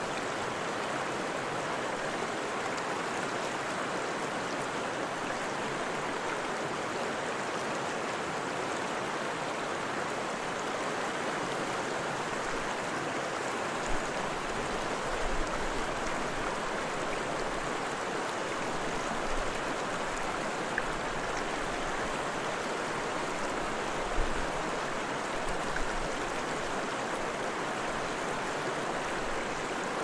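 River water rushing and babbling steadily, with a few brief low bumps partway through.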